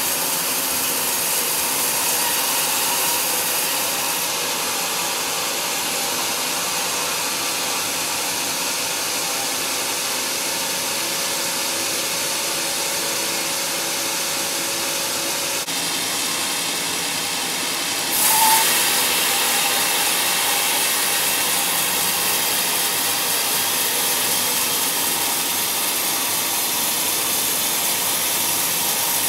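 Sawmill band saw cutting lengthwise through a large log: a steady, noisy rush of the blade running through the wood. About two-thirds of the way through, the sound steps up, louder and brighter.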